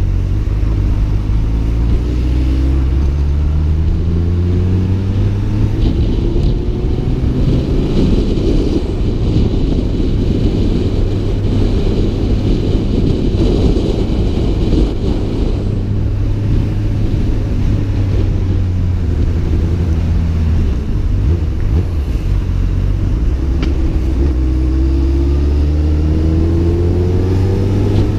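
Honda Hornet CB600F's inline-four engine accelerating through the gears, its pitch climbing and dropping back at each shift. In the middle it is partly covered by a steady rumble of wind on the helmet-mounted camera, and it climbs again near the end.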